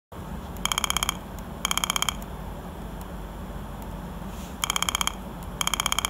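Piezo buzzer driven by a CD4060 oscillator circuit, sounding an old-style telephone ring: two short rings, a pause, then two more. Each ring is a rapid buzzing trill of about sixteen pulses a second, lasting about half a second.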